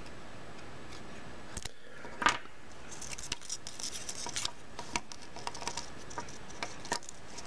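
Small plastic parts of a Canon A4000 lens assembly clicking and rubbing as the back plate is handled and fitted on. There is one sharper click about two seconds in, then a run of light ticks and taps, over a steady hiss.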